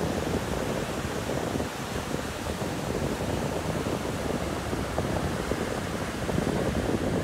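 Surf: small waves breaking and washing up a sandy beach, with wind buffeting the microphone.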